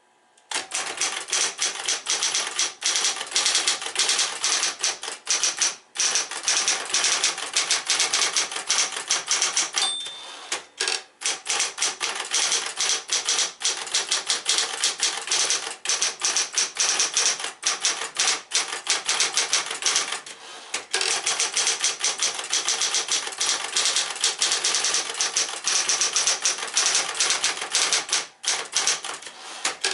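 Smith-Corona Coronet Electric 10 electric portable typewriter typing fast, a rapid run of power-driven keystrokes broken by brief pauses about a third and two thirds of the way in.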